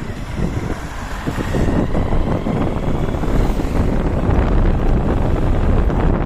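Wind buffeting the microphone: a loud, uneven low rumble that grows louder about a second and a half in.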